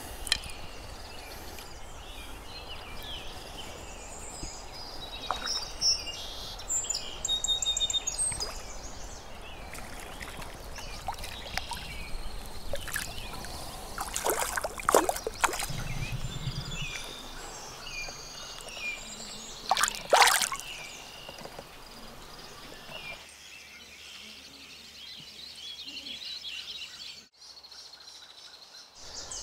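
River ambience with birds singing, broken by short water splashes and sloshing, some of it near the microphone.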